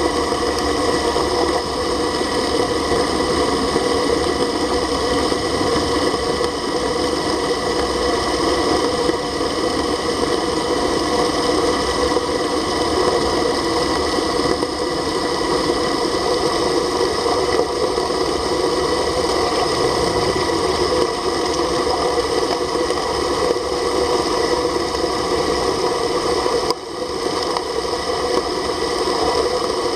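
Dragflow submersible agitator dredge pump running underwater while it stirs up and sucks in seabed sediment: a steady mechanical hum and rushing noise with several fixed whining tones. It drops briefly once near the end.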